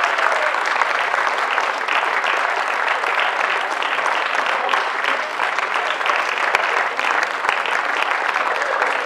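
Audience applauding: many hands clapping in a dense, even stream at a steady level.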